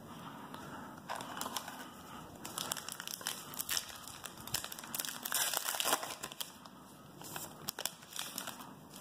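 Wrapper of a trading card pack crinkling and tearing as the pack is opened by hand, an irregular run of crackles that is busiest a few seconds in and again about two-thirds of the way through.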